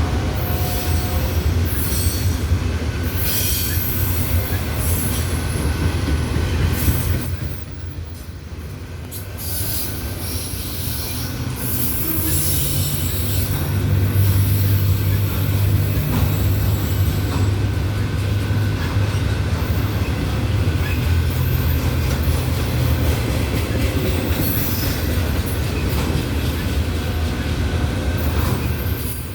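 Loaded autorack freight cars rolling past: a steady low rumble of steel wheels on rail, with high-pitched wheel squeal coming and going.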